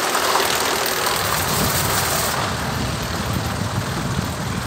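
Mountain coaster cart rolling along its steel rail track: a steady rumble.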